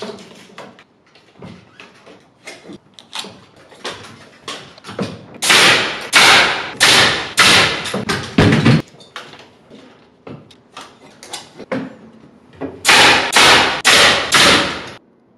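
Pneumatic nail gun firing in quick runs, about seven shots in a row and then four more near the end, fastening a prefab wooden arch into a framed opening. Lighter knocks and clatter come between the runs.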